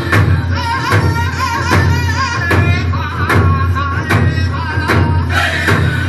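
Loud background music with a steady beat, a strike about every 0.8 seconds, and a wavering melody through the first half.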